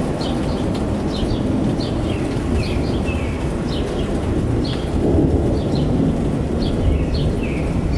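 Thunderstorm rumbling steadily and low, with a bird chirping over it again and again in short, falling notes.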